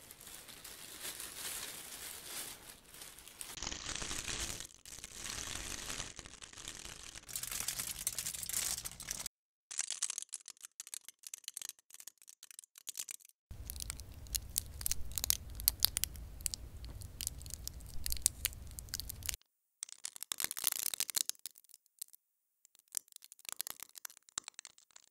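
Thin sheets being crumpled in several separate takes, a dense crackle of many small clicks, alternating between real recordings and physically simulated crumpling sounds. First a plastic shopping bag, then aluminium foil, and near the end cellophane candy wrappers. Short silent gaps fall between the takes.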